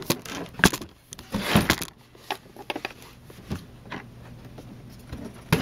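Cardboard box being handled and pulled at: scattered rustles, scrapes and light knocks, with a sharper knock near the end.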